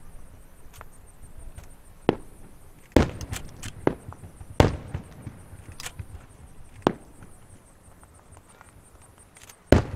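Aerial fireworks shells bursting overhead: about eight sharp, scattered bangs at irregular intervals, the loudest about three and four and a half seconds in, with another near the end.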